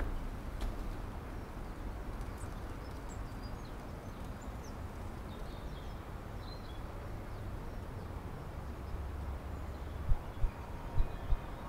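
Outdoor ambience: a steady low rumble with faint bird chirps in the first few seconds. A few sharp low thumps come near the end.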